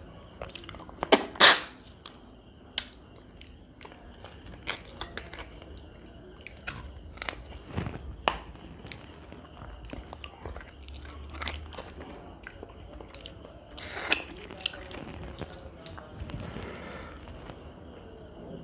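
A man eating curry and rice by hand: biting and chewing, with a run of short, sharp, wet mouth clicks, the loudest just over a second in and another burst near the end.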